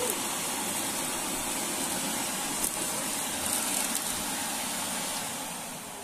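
Samsung canister vacuum cleaner running steadily, its motor and the rush of air drawn through the freshly repaired hose; it is working again after the repair. The sound eases down somewhat near the end.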